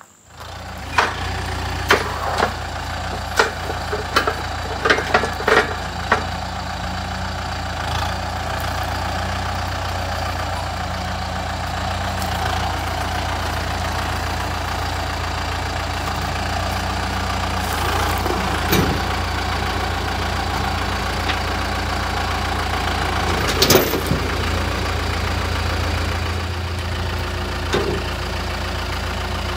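Farm tractor's diesel engine running steadily, with several sharp knocks in the first few seconds and two louder knocks later on.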